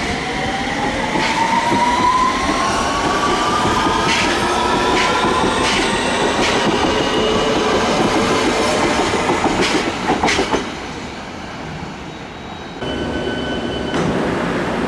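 London Underground S7 stock train accelerating hard under Automatic Train Operation: its traction motors whine with a pitch that rises steadily over several seconds, and its wheels click over rail joints. In the last two seconds a standing train hums, with a short high electronic tone.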